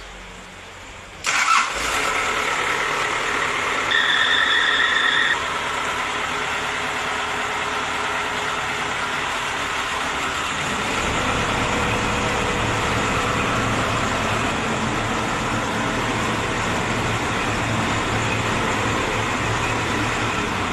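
Diesel engine cranked and catching about a second in, then running steadily, just after its dead glow plugs were replaced. A high steady tone sounds for about a second and a half near 4 s, and the engine note deepens from about 11 s.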